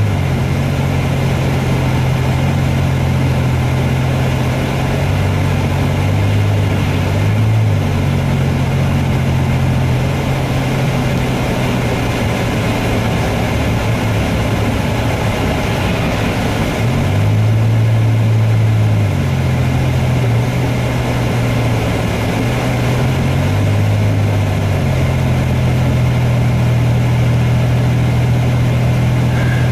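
Inside a car's cabin at highway speed: a steady engine and tyre drone, with tyres running on a wet, slushy road. The low hum shifts in pitch several times.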